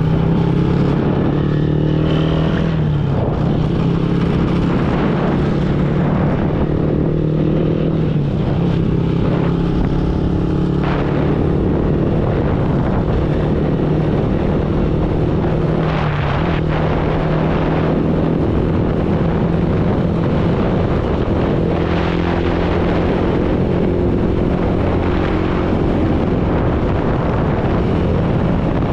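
Motorbike engine running steadily while riding, its note dipping briefly a few times, over rushing wind on the microphone.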